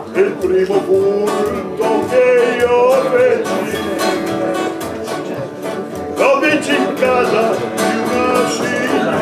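Acoustic guitars strummed in a steady rhythm, with a voice singing a folk song over them.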